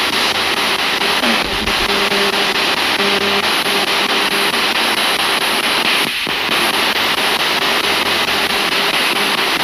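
Spirit box radio scanning: a constant loud hiss of static, broken by short chopped fragments of tone as it sweeps between stations.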